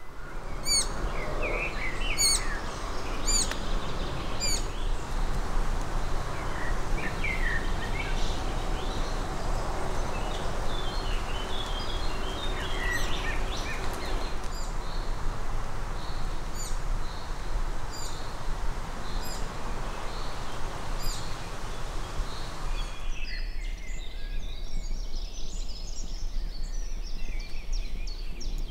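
Wild birds singing and calling over a steady background noise, with a series of short repeated high chirps in the first few seconds. About 23 seconds in, the background noise drops away and a busier stretch of bird song carries on.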